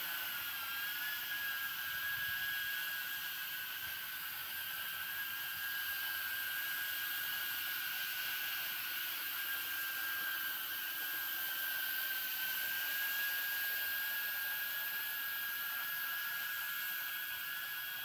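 3D-printed 3-inch cinewhoop quadcopter hovering, its propellers giving a steady high-pitched whine that barely changes in pitch as it holds altitude with the sticks centred.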